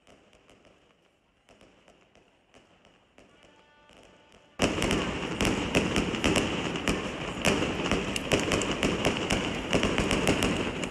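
Fireworks display. Faint, scattered pops and crackles at first, then a little under halfway through a sudden loud, rapid, continuous crackling and banging of many shells bursting.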